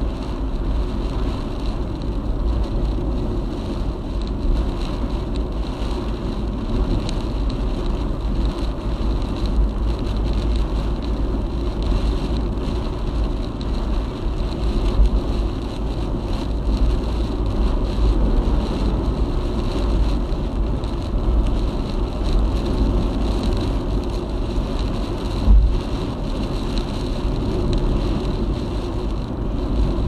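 Car driving through typhoon winds and rain: a steady, heavy road rumble mixed with wind noise. A single short thump comes near the end.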